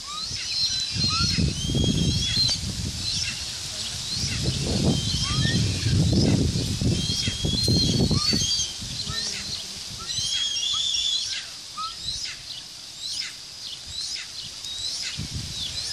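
Birds chirping in many short, high calls and quick sweeps, over a low rumble that swells and fades several times.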